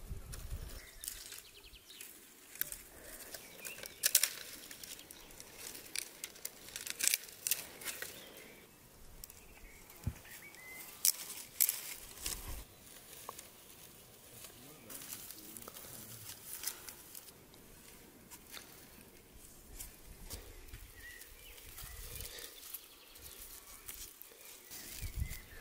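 Dry brushwood branches rustling, scraping and clicking against each other as they are handled and bundled together, an irregular run of crackles with a few sharper snaps.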